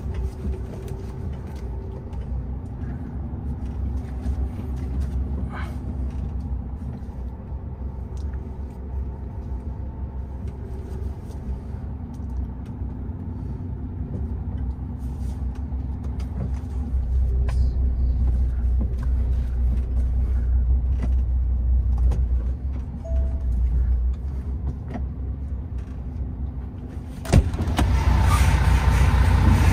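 MAN TGX 18.510 truck's six-cylinder diesel engine running at low speed with a steady drone, which grows louder for several seconds past the middle. Near the end a sudden knock is followed by a louder, fuller sound.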